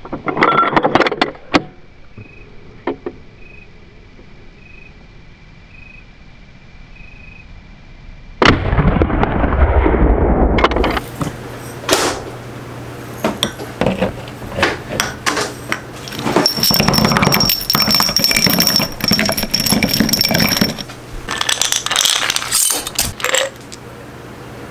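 A lever-action rifle loaded with black powder fires once, a sudden heavy boom that dies away over about two seconds. Then glass jars and cast lead bullets clink and rattle as they are handled on a table.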